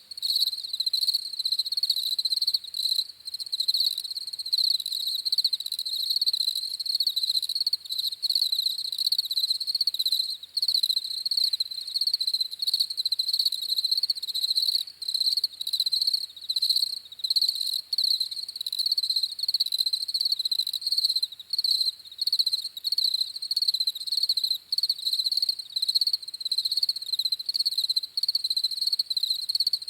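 Crickets chirping in a dense, continuous chorus: a high, steady, rapidly pulsing trill with no breaks.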